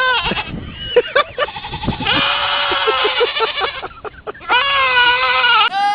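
Animal bleating, goat-like: a few shorter calls, then two long wavering calls about two seconds and four and a half seconds in.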